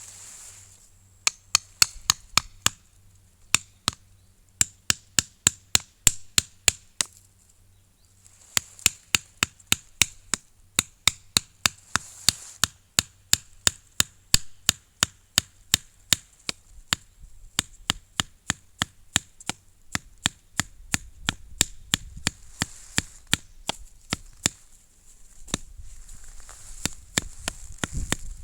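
Rapid, sharp chopping strikes on wood, about four a second, in runs with short pauses between them.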